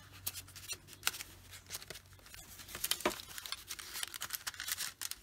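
Paper rustling, with short scrapes and taps, as a paper tag is slid in and out of an envelope pocket and the journal's pages are handled.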